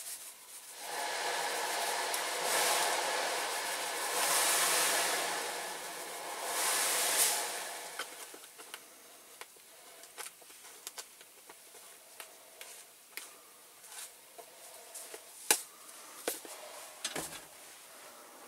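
Caustic soda poured from a plastic bottle into a tub of hot water, a rushing pour for about seven seconds with two louder surges, then scattered small pops and crackles as the solution starts bubbling around the diecast parts.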